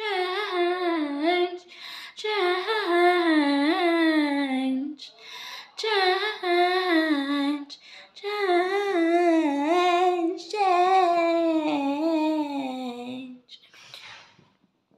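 A woman singing unaccompanied, a wavering melody held in five long phrases with short breaths between them, stopping about 13 seconds in.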